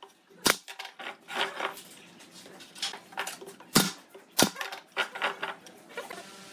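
Pneumatic brad nailer firing nails into pine boards: a string of sharp shots at uneven spacing, the loudest about half a second in and twice near four seconds, with lighter clicks between.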